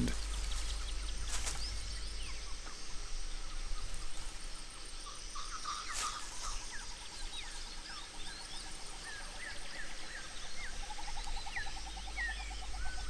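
Tropical forest ambience: many short bird chirps and calls, and a fast pulsing trill that comes in midway and grows stronger toward the end. Two sharp clicks stand out, the louder one about halfway through.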